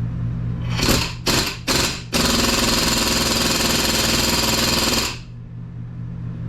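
Pneumatic air tool fired in three short bursts, then run steadily for about three seconds, over a steady low hum.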